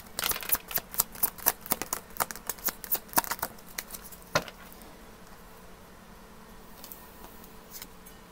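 Tarot cards being shuffled and handled, a quick run of crisp card clicks, about five a second, that stops after about four seconds.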